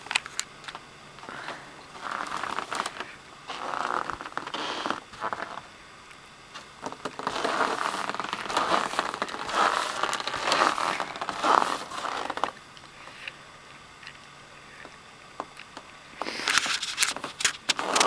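Footsteps crunching in cold, dry snow: uneven bunches of crunches with quieter pauses between them.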